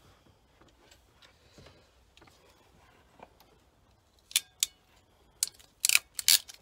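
Small plastic and metal light-fitting parts being handled: faint ticks, then about six sharp clicks and snaps in the last two seconds, the first pair ringing briefly.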